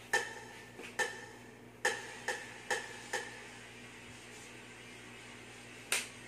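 Opening of a karaoke backing track played by the TJ Media TKR-305P player: a few sharp pitched notes that each ring out briefly, spaced in a loose rhythm, quickening about two seconds in, with one more note near the end.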